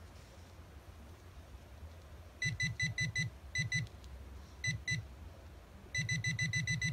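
Nokta Makro Pulse Dive (Scuba) pinpointer beeping as it is brought toward a small metal nut, signalling that it has detected the target. Short, high beeps come in quick bursts from a couple of seconds in, then a fast unbroken run of beeps near the end.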